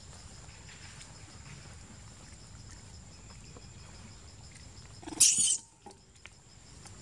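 Long-tailed macaque giving one short, shrill squeal about five seconds in, loud against a quiet background.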